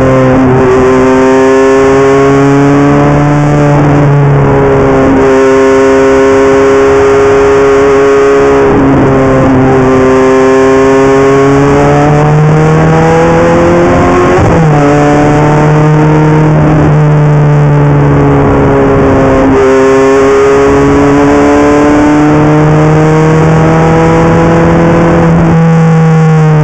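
Ferrari F430 GT race car's V8 heard from inside the cockpit under hard throttle, its pitch holding or climbing slowly through long pulls. The pitch drops sharply at gear changes, about a second in, about halfway and at the very end.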